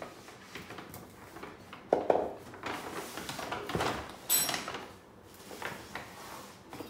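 Gifts being handled: a couple of sharp knocks about two seconds in, then rustling and crinkling as hands go into a paper gift bag.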